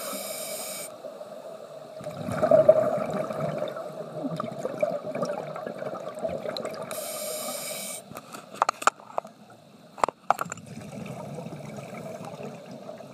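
Underwater scuba breathing through a regulator: a hissing inhale from the demand valve at the start and again about seven seconds in, with a bubbling rush of exhaled air between, loudest about two seconds in. A few sharp clicks near the end.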